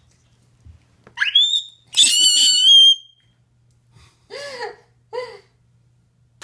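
A toddler squealing: a rising high-pitched squeal about a second in, then a louder, very high squeal held for about a second. Two shorter, lower excited vocal sounds follow near the end.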